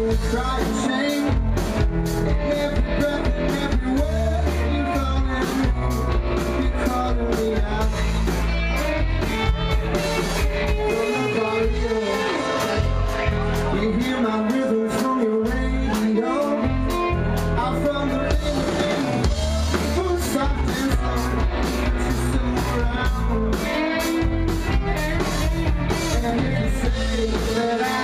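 Live rock band playing electric guitars over a drum kit keeping a steady beat, with bending guitar lines.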